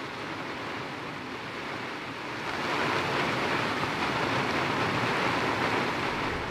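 Storm wind and driving rain over whitecapped water, a steady rushing noise that grows louder about two and a half seconds in as a gust comes through.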